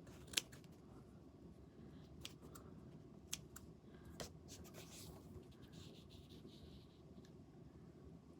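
Scissors faintly snipping through fabric, trimming off excess: a few scattered sharp snips against near silence, the clearest about half a second in.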